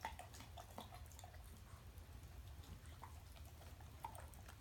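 Faint, sparse wet clicks of a boxer licking and gnawing at a peanut-butter-and-carob coated rawhide stick, over a low steady hum; otherwise near silence.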